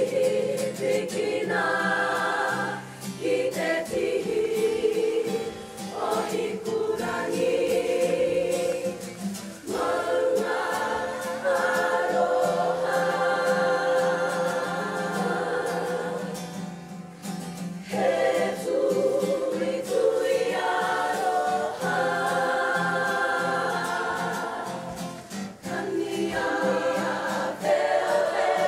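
Kapa haka group singing a waiata-a-ringa (Māori action song) together, in long phrases with short breaks for breath between them.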